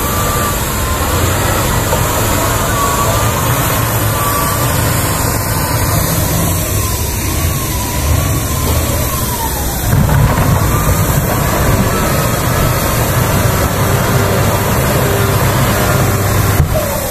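Heavy construction machinery running, with a wheel loader's diesel engine as the main source: a steady low rumble under a high whine that wavers up and down in pitch, the rumble growing louder about ten seconds in.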